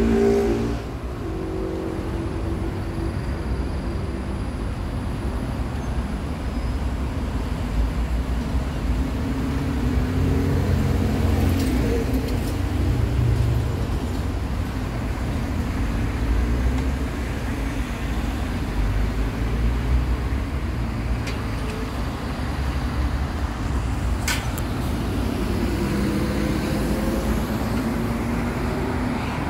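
Road traffic passing close by: a steady rumble of engines and tyres, with engine tones rising and falling as vehicles go past.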